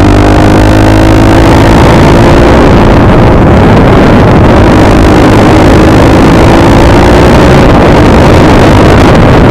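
Yamaha XTZ125's single-cylinder four-stroke engine pulling along a gravel road, rising in pitch over the first few seconds as it accelerates, then holding speed under loud rushing wind noise.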